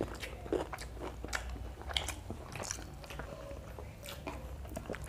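Two people chewing and biting mouthfuls of paratha and chicken curry eaten by hand: irregular small clicks and wet mouth noises.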